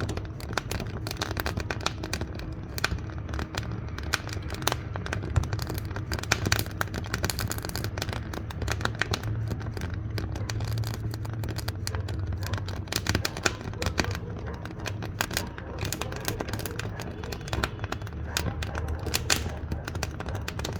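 Wood fire burning in a wood-fired cookstove, crackling with many sharp pops and snaps over a low steady rumble.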